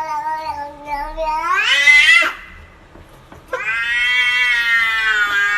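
Domestic cat giving two long, drawn-out meows. The first swells and rises in pitch before breaking off about two seconds in; the second starts a second later and is held steady.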